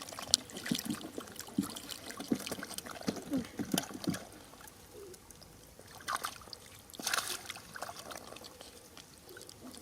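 Shallow rice-field water splashing and trickling as fish are caught by hand. There is a run of small splashes in the first few seconds, then it goes quieter, with two brief splashes later.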